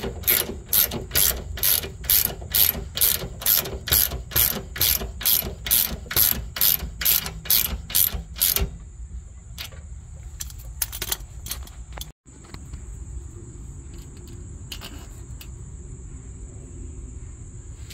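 Hand ratchet clicking steadily, about two and a half clicks a second, as it turns the nut on the rear camber arm's ball joint stud. The clicking stops about nine seconds in, and only a few faint clicks follow.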